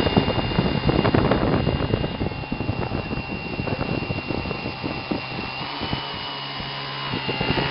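Small motor spinning a rotor at high speed on a homemade test rig: a steady high whine over a low hum, with a dense rattle that thins out after about three seconds. The whine steps up slightly in pitch a little past halfway.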